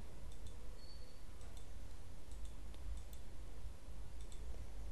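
Computer mouse clicking: a scattered series of faint, irregular clicks as objects are picked one at a time, over a steady low hum.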